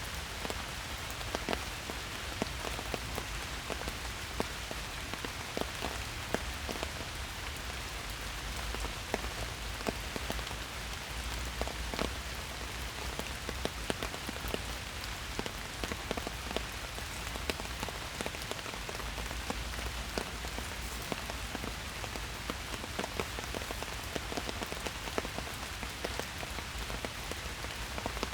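Steady rain falling in a park forest, an even patter with many separate drops ticking close by.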